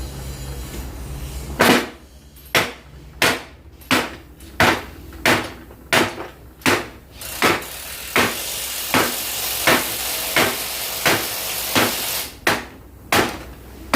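Steady hammer blows, about eighteen at roughly one every two-thirds of a second, driving a splined end into a truck driveshaft tube. A steady hiss runs under the blows for a few seconds in the second half.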